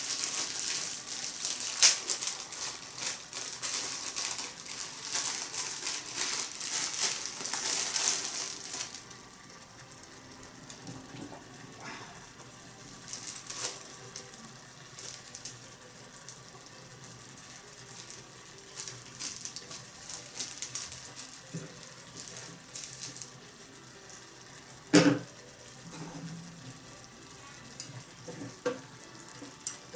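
Offal and noodles sizzling in a small cast-iron pot just after champon noodles go in, a loud crackling sizzle for about the first nine seconds that then drops to a faint sizzle with scattered clicks. One sharp knock about 25 seconds in.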